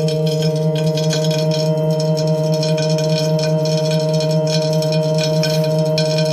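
Tacx Neo direct-drive smart trainer running with no cassette fitted: a steady hum of several tones with a fluttering, scratchy grinding over it. The grinding from the disk is the fault the owner is reporting.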